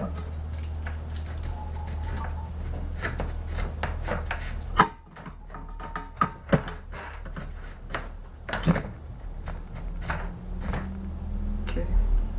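Irregular knocks, clicks and scrapes of an electrical wire being worked by hand through a small hole in a boat deck, with one sharp knock about five seconds in.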